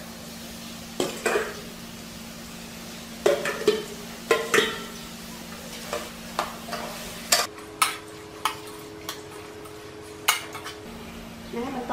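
A metal ladle knocking and scraping against a stainless steel pot as chicken pieces are stirred into curry paste, in about a dozen separate clinks, over a low steady hum.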